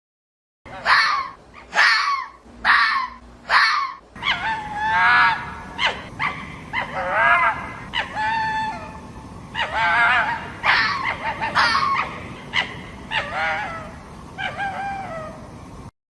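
Fox calling: four short sharp calls less than a second apart, then, from a second recording with a steady background hiss, a run of longer calls that waver in pitch.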